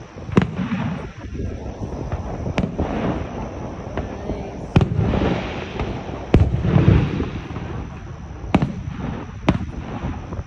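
Fireworks shells bursting: about six sharp bangs, one to two seconds apart, each followed by a rumbling, crackling tail.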